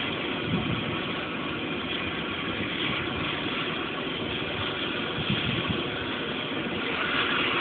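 Rail-welding equipment running with a steady, even noise that does not change.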